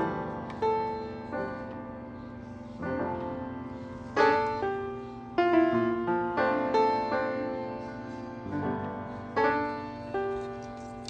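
Background music: piano notes and chords played at a gentle pace.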